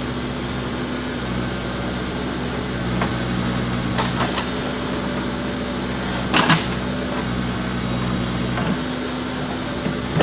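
Tractor loader backhoe's diesel engine running under work, its speed shifting about a second in and again near the end, with a few sharp knocks, the loudest a double knock about six seconds in.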